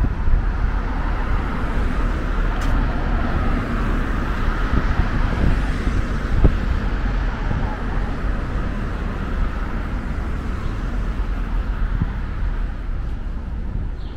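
Steady city street traffic noise: cars' engines and tyres running along the road.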